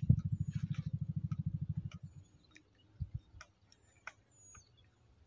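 A small engine running with an even low pulse, about a dozen beats a second, that fades away about two seconds in. Scattered faint ticks and a few soft thumps follow.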